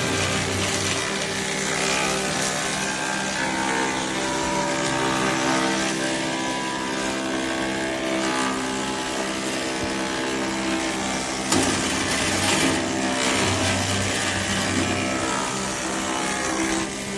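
Double-sided wood thickness planer running: a steady machine hum under a dense rush of cutting noise, with a sharp crack about eleven and a half seconds in.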